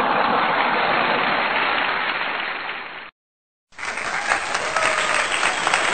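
Stock applause sound effect: a crowd clapping, cut off abruptly about three seconds in. After half a second of dead silence, a second applause clip with more distinct individual claps starts.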